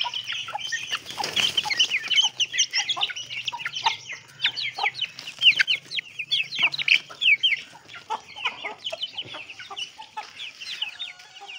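A brood of Aseel chicks peeping: a rapid, overlapping stream of short, high, falling calls, with a hen clucking lower among them.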